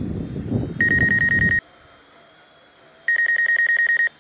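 An electronic ringing tone, like a telephone ring: a steady high pitch that warbles rapidly, sounding in bursts of about a second with short gaps. A low rushing noise under the first ring cuts off abruptly.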